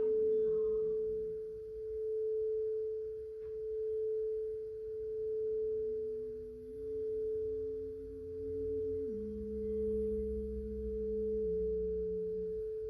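Singing bowl sounding one steady pitched tone that slowly swells and fades in a regular wavering pulse. Fainter lower held notes underneath change pitch a few times, dropping lower about two-thirds of the way through.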